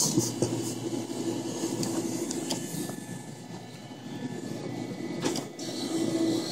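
Claw machine's gantry motors whirring steadily as the claw is moved and lowered over the prizes, with a couple of sharp clicks partway through.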